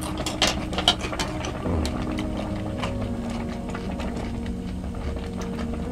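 A spoon and ladle clicking against a metal pan of stew several times in the first second, then quieter ladling over a steady low hum.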